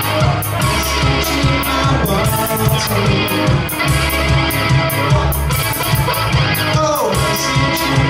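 Live rock music: an electric guitar played through an amplifier over a steady beat and bass line.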